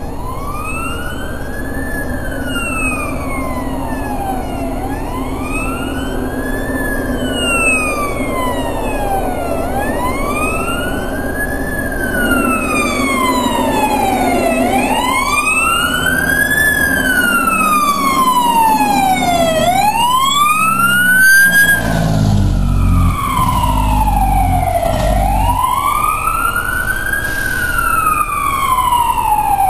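Fire engine's wail siren rising and falling in slow sweeps about every five seconds, getting gradually louder as it approaches. A deep rumble comes in strongly about two-thirds of the way through as the truck draws close.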